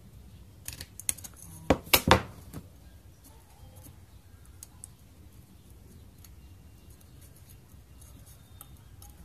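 Tin snips cutting a small V-notch into the rim of a thin metal can: a short run of sharp metal snips about a second in, the loudest three close together near two seconds, followed by faint clicks of handling.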